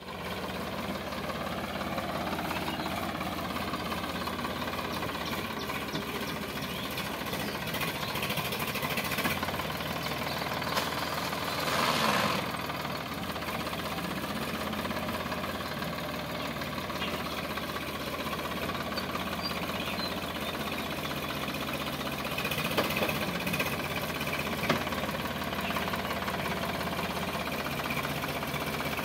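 Sonalika DI 745 tractor's three-cylinder diesel engine running steadily at low speed while pulling a heavily loaded trailer, briefly louder about twelve seconds in.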